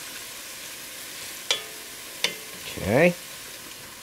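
Chopped garlic and crushed red chili peppers sizzling steadily in hot oil in an enameled cast-iron pot as the garlic browns, with a wooden spoon stirring and knocking twice against the pot, about a second and a half and two seconds in.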